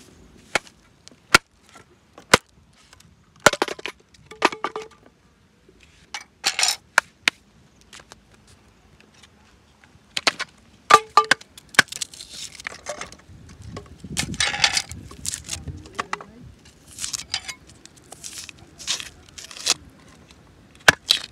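Scattered sharp snaps and knocks of dry wooden sticks being broken and stacked for a cooking fire. After about ten seconds come denser scraping and clicking sounds of a knife peeling and trimming shallots.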